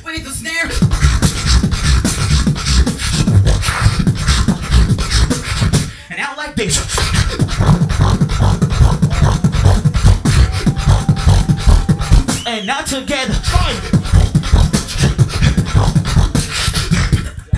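Beatboxer performing into a handheld microphone through the venue's sound system: fast, dense kick-and-snare rhythms. The beat breaks briefly about six and thirteen seconds in for short pitched vocal glides, then picks up again.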